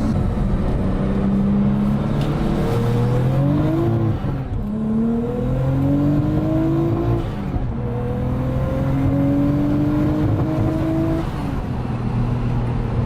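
Turbocharged Nissan RB25 straight-six accelerating hard through the gears: the revs climb three times, each pull cut short by an upshift at about four, seven and eleven seconds in. It is still running the old worn coil packs, which the owner blames for misfiring and breaking up above about 5,000 rpm under load.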